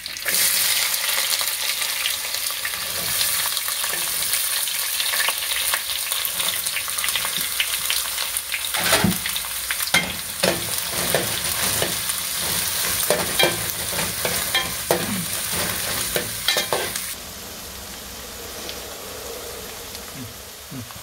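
Chopped onions sizzling as they go into hot coconut oil with curry leaves in a stainless steel pan. A metal spoon stirs them with sharp clinks and scrapes against the pan. About three quarters of the way through, the sizzle drops to a quieter, steady frying.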